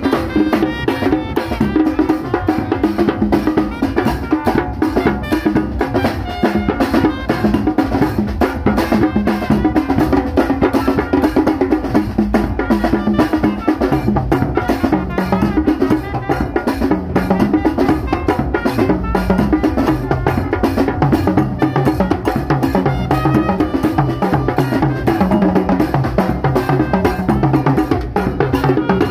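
Brass band playing a fast, busy beat led by its drum section: a big bass drum, a set of metal tenor drums with a cymbal, and a hand-held snare drum. Low horn notes move underneath the drumming.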